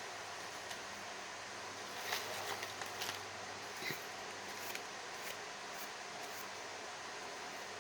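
Small herb packets being handled, with a scattering of soft crinkles and light taps for a few seconds over a steady background hiss.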